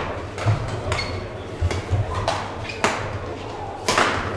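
Badminton rackets striking a shuttlecock back and forth in a singles rally, with sharp hits about one a second and the loudest near the end. Court shoes squeak briefly and feet thud on the court floor between the hits.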